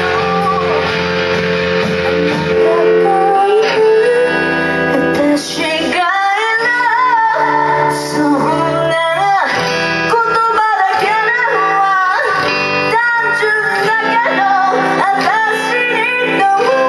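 Band music: a woman singing over guitar.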